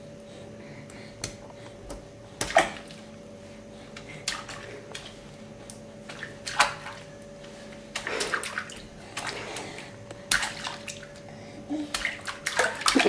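Bath water sloshing and splashing in a kitchen sink as a baby paddles his hands through the bubbles: small irregular splashes, a few louder than the rest, getting busier near the end.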